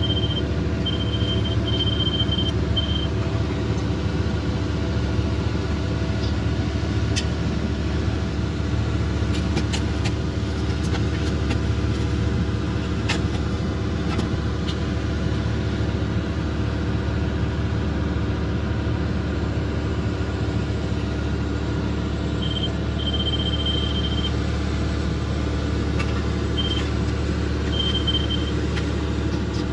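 Diesel engine of a piece of heavy digging equipment running steadily, with a high electronic beep sounding in short intermittent dashes near the start and again near the end, and a few sharp clanks in between.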